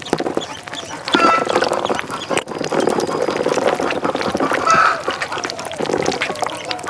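Ducks quacking, with short calls about a second in and again near five seconds, over busy splashing and clicking.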